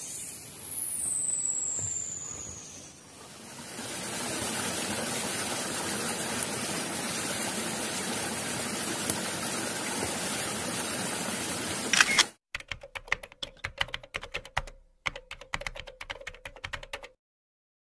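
A high whistle slides down in pitch at the start, then spring water pours steadily from a spout onto the forest floor. About twelve seconds in, a fast run of typing clicks, a typewriter sound effect, takes over for about five seconds and cuts off abruptly.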